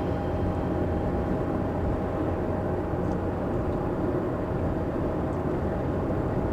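Steady motor noise with a low hum and a few steady higher tones, unchanging throughout.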